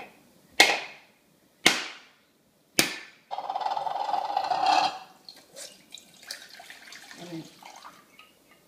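A cleaver strikes a whole brown coconut held in the hand three times, about a second apart, with sharp cracks. The shell splits and coconut water pours into a ceramic bowl for about two seconds, then drips and trickles more faintly.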